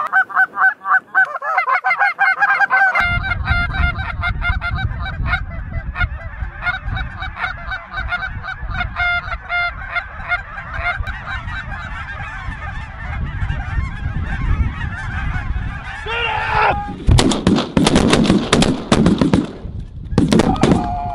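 A large flock of snow geese calling continuously overhead, a dense chorus of high honks and yelps. About three-quarters of the way through, a rapid volley of shotgun fire from several shooters breaks out and continues to the end.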